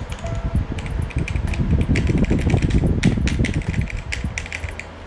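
Fast typing on a Keydous NJ80 75% mechanical keyboard: Kailh Box Red linear switches under dye-sub PBT keycaps on a steel plate in a plastic case. A dense clatter of keystrokes, heaviest about two to three and a half seconds in.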